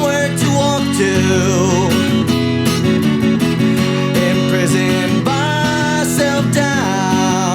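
A recorded song playing: a wavering melody line over held chords.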